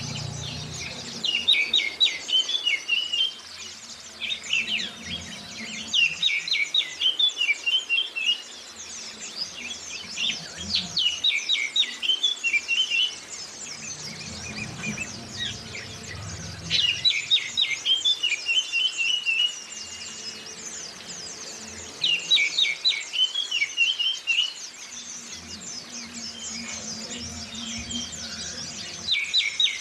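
Oriental magpie-robin and white-eye song: bursts of rapid, chattering high notes repeated every two to three seconds over a steady high hiss.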